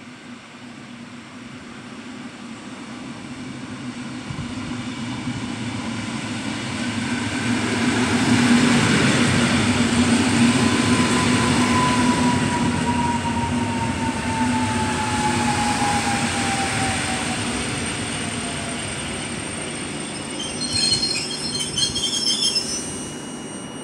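Electric multiple unit running along the platform: the rumble of wheels on rail builds to its loudest about a third of the way in, with a falling whine under it. Near the end come several high-pitched brake squeals as the train slows.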